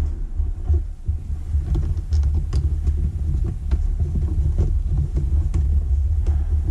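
A steady low rumble with faint, scattered small clicks and taps, as of electrical wires and a switch being handled.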